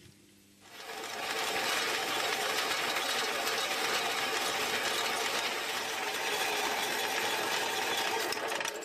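Metal-cutting bandsaw starting up about half a second in and running steadily as it saws an angled cut through the end of a steel shank, stopping right at the end.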